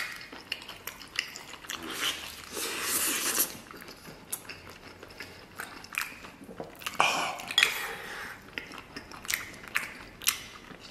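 Close-up eating sounds: a person biting and chewing stewed cow hoof, gelatinous skin and meat, with many short wet clicks and two longer noisy stretches about two and seven seconds in.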